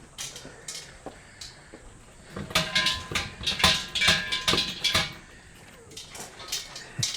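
Shinto shrine bell (suzu) shaken by its rope, jingling and rattling for about three seconds, a rapid run of metallic strikes with a ringing tone.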